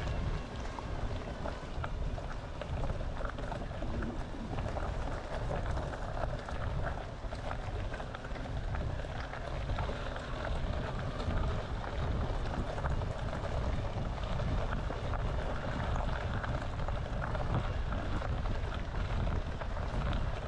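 Wind buffeting the microphone: a steady, uneven low rumble with a rushing hiss over it.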